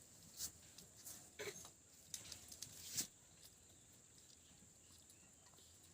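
Soft, scattered clicks and taps of people eating rice by hand from plates, about six in the first three seconds, then near silence with a faint steady high hiss.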